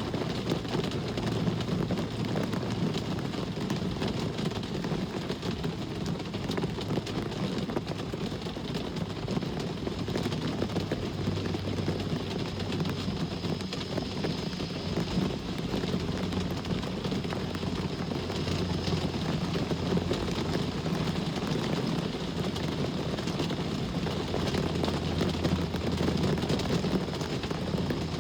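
Steady rain mixed with the continuous low rumble of road traffic, the rumble swelling and easing slowly as vehicles pass.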